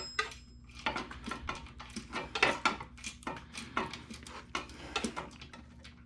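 Irregular light metallic clinks and taps, a couple or more each second, from metal tools and parts being handled on a small Honda GX190 engine, over a faint steady low hum.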